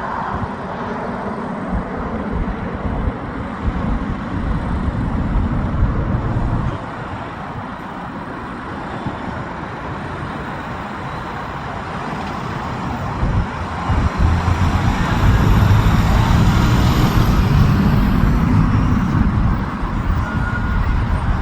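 Jet engines running at high power during takeoff, a steady rumble that swells to its loudest about two-thirds of the way through, with a high whine over it at the peak, then eases slightly.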